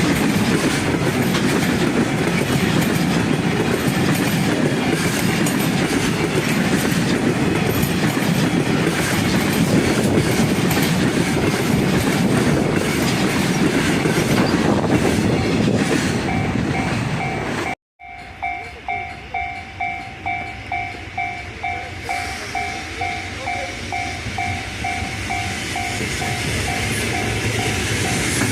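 Freight train running past at speed, its wheels clattering over the rail joints. After an abrupt cut a little over halfway through, the level crossing warning bell dings over and over at a steady rate, with train noise building again near the end.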